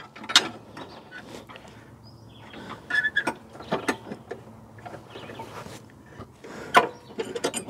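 Scattered metal clicks and scrapes of a coiled steel extension spring being stretched and hooked onto a bracket on a Cub Cadet riding mower deck, the loudest click near the end.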